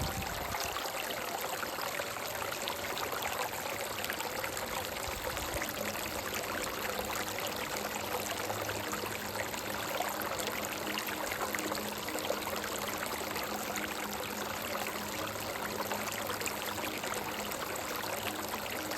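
Shallow stream running over rocks: a steady, even rush and trickle of water.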